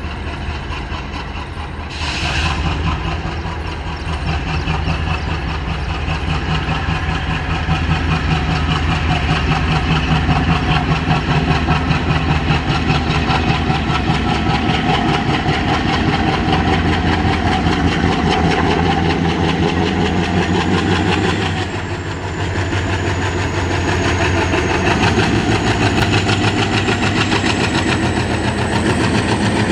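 Indian Railways WDP-3A 'Toaster' diesel locomotive's ALCO engine chugging under load as it hauls a passenger train, a fast steady throb that grows louder as it comes on. There is a short hiss about two seconds in and a faint high whine rising near the end.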